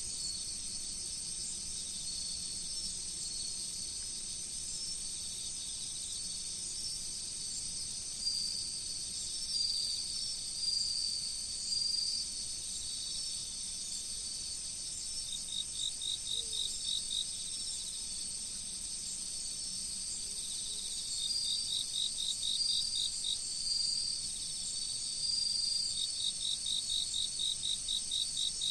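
Chorus of autumn insects such as crickets: several steady, high-pitched trills at different pitches run on together. In the second half, bouts of rapid pulsed chirping join in three times, at about five chirps a second.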